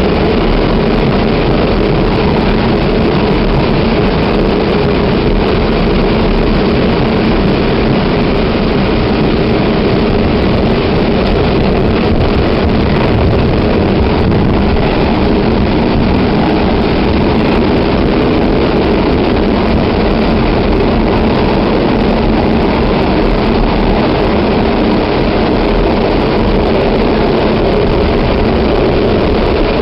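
Staten Island Railway train running at speed, heard from inside the car: a steady, loud rumble and rush of the moving train with no breaks or changes.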